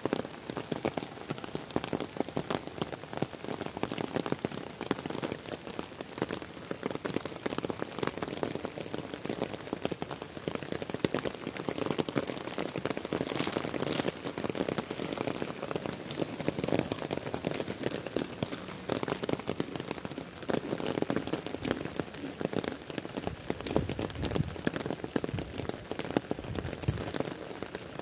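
Heavy rain falling steadily: a dense, even patter of countless drops.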